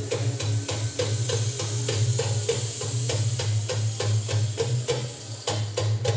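Instrumental music with a fast, even beat of sharp clicks, about four a second, over a low pulsing bass.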